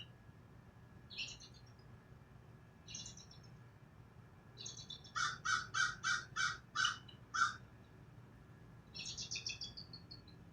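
Birds calling outdoors: a few short high chirps, then a run of about seven calls, a little over two a second, in the middle, and a quick trill of rapid notes near the end.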